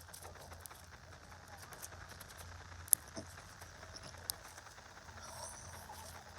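Slime being scratched by fingers: faint scattered crackles and small clicks, with one sharp click about three seconds in.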